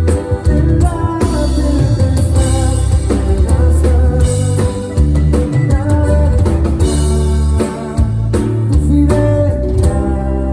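A live band playing a song in rehearsal: drum kit, a heavy bass line and guitar, with some singing.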